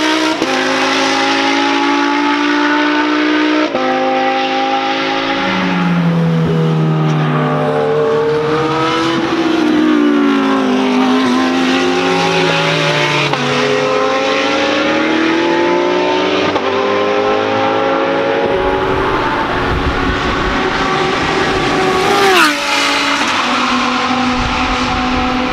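Lamborghini Huracán GT3 race cars' V10 engines at racing speed, the notes rising and falling with acceleration, gear changes and braking, and at times more than one engine at once. About 22 seconds in, one car passes close with a loud, sharp drop in pitch.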